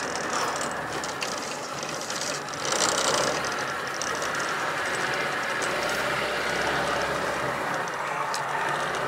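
Small metal fishing boat under way on a river: a steady mechanical running clatter with water noise, a little louder about three seconds in.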